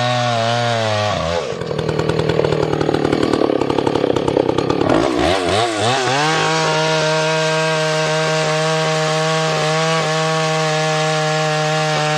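Vintage Husqvarna 2100-series two-stroke chainsaw with a 28-inch bar and .404 chain at high revs. About a second in it pulls down into a cut and runs rough under load for about four seconds, then frees up and runs at a steady high pitch.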